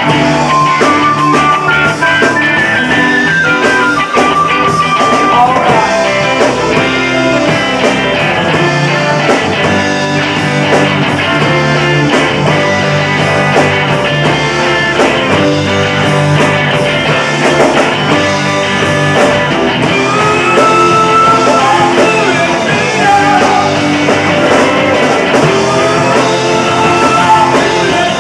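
Rock band playing live: electric guitar, bass guitar, drums and keyboards, loud and continuous.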